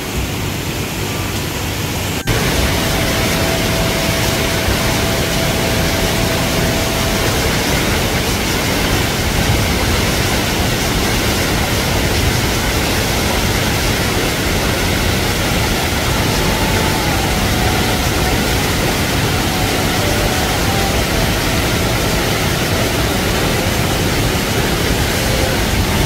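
Mountain stream rushing over rocks. About two seconds in, this gives way to the louder, steady rush of a 15-metre waterfall pouring into its deep pool.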